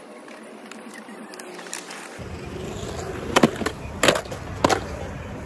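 Skateboard wheels rolling on concrete, building up, then three sharp clacks about two-thirds of a second apart as the skater pops the board into the air and lands.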